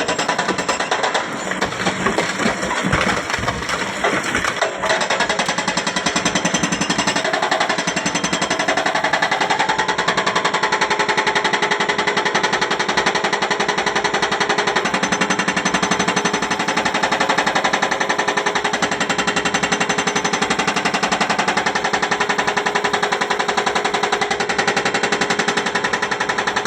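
Excavator-mounted hydraulic breaker hammering rock in a rapid, steady stream of blows.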